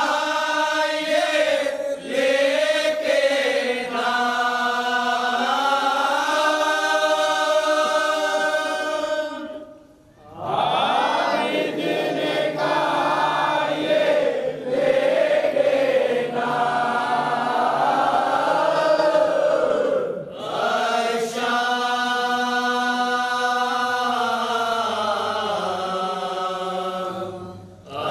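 A group of men chanting a nauha, a Shia lament, together in long held lines. The chant breaks off briefly about ten and twenty seconds in and again near the end, between lines.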